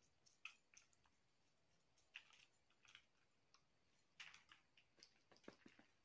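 Near silence, with a few faint, scattered soft clicks and rustles of fingers handling food on a plate as sprouted fenugreek seeds are spread over it.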